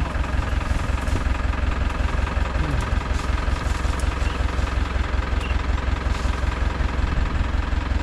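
Tractor engine running steadily with a low, even throb.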